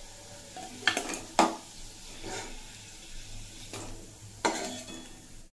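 Metal spatula scraping and clinking against a metal kadai, about five strokes, as fried onions, garlic and spices are scooped out of hot mustard oil, over a faint sizzle of the oil.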